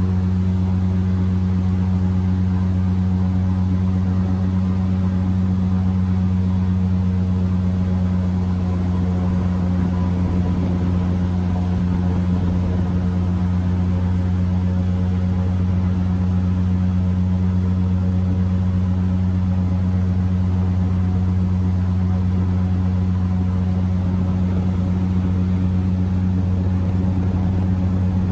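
Airboat engine and propeller running steadily at cruising speed: a loud, constant deep drone that neither rises nor falls.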